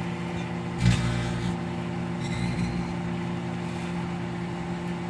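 Microwave oven running with plasma burning inside, a steady electrical hum with a noisy buzz over it. A short knock about a second in.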